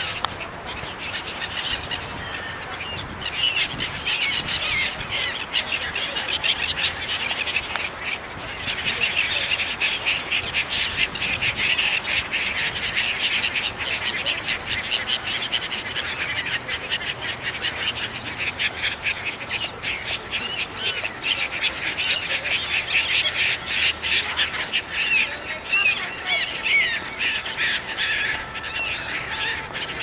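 A flock of gulls calling over and over, with many short harsh cries overlapping, screaming for food as they crowd together on the water. The calling grows denser about eight seconds in.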